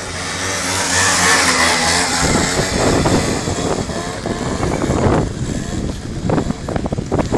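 Scooter engine revved hard while its rear wheel spins on ice in a burnout. A steady engine note swells in the first two seconds, then turns rougher and more irregular as the wheel spins.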